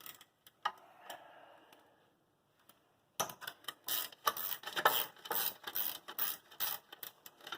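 Metal tools and parts clicking and scraping as they are handled during front axle work: a couple of light clicks, then from about three seconds in a busy, irregular run of sharp clicks and scrapes.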